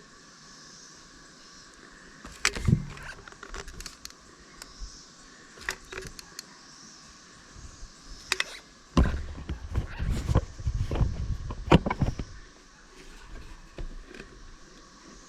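Scattered clicks and knocks of tools and materials being handled while sealing a water tank roof, with one loud thump a couple of seconds in and a run of heavy thumps and bumps about nine to twelve seconds in.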